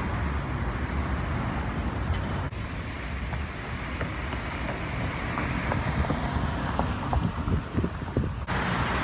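Wind noise buffeting a phone microphone, over a steady background of street traffic. The noise breaks off abruptly about two and a half seconds in and again near the end.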